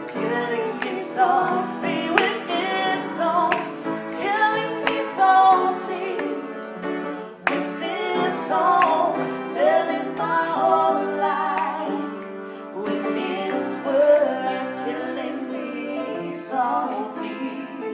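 Live singing: a woman's voice with vibrato, holding and bending notes over grand piano accompaniment, with a man's voice joining in.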